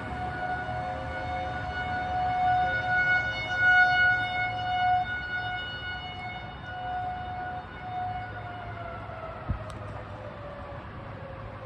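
Tornado warning siren sounding a steady wail that swells and fades in loudness, then winding down, its pitch falling from about eight seconds in.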